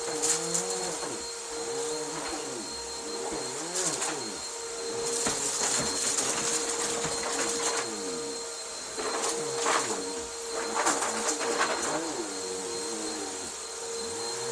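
Bissell upright vacuum running with a steady whine, its hum wavering as it is pushed back and forth over a rug. Bursts of crackling come as it sucks up scattered crunchy debris.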